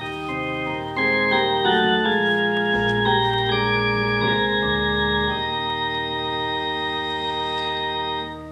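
Organ-like hymn introduction: slow sustained chords moving from one to the next, ending on a long held chord that cuts off just before the end.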